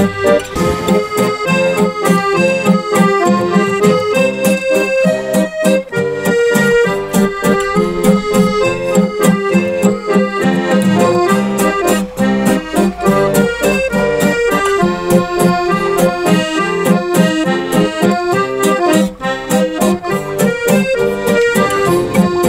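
Diatonic button accordion playing an instrumental passage of a folk tune in sustained, reedy chords, over a quick, even strummed acoustic guitar rhythm.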